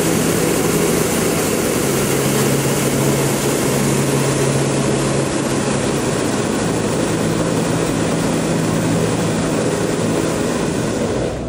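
Hot air balloon's propane burner firing: a loud, steady roar held for about eleven seconds that cuts off near the end.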